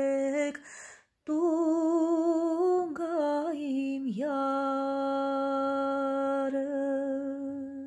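A woman humming an Armenian folk melody unaccompanied, with vibrato on the notes. She breaks off briefly about a second in, then ends on a long held note.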